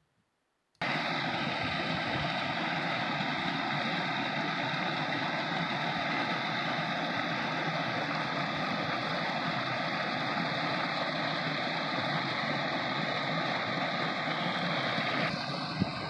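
Steady rush of a small waterfall and a snowmelt stream cascading over rocks. It starts abruptly about a second in, and its tone shifts slightly near the end.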